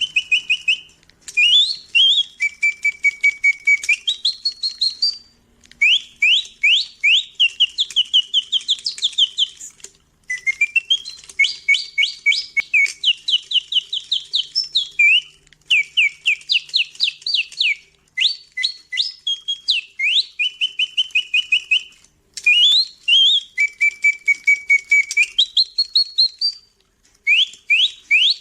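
Bontems singing-bird automaton whistling a mechanical birdsong: phrases of quick, high whistled notes, many sweeping up and some held, broken by short pauses every few seconds, with the same phrases repeating.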